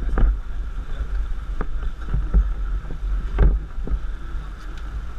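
Wind buffeting a camera microphone: a steady low rumble with a faint hum. Several short thumps come through, the loudest about three and a half seconds in.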